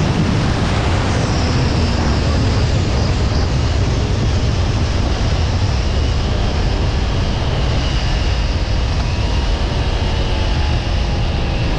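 Loud, steady wind noise on the microphone over the low rumble of a Kawasaki Ninja 400's parallel-twin engine and its tyres, riding along a highway at about 65 km/h.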